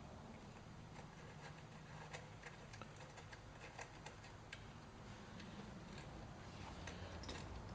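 Faint, irregular metallic clicks of a wrench turning a Time-Sert installation driver as it threads an insert into a stripped exhaust-bolt hole in an aluminium engine case, over a low steady hum.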